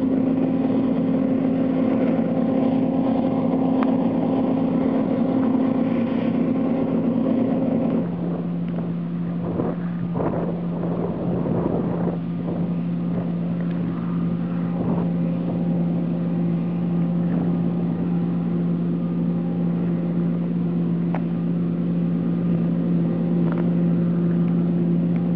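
John Deere T560 combine harvester running steadily while harvesting wheat, a continuous mechanical drone with a steady hum. About eight seconds in, the hum drops to a lower pitch and carries on.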